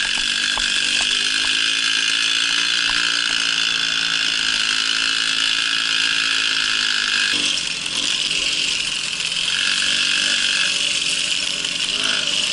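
Babetta moped's small two-stroke engine running steadily under way, easing off briefly a little past halfway and then picking up again.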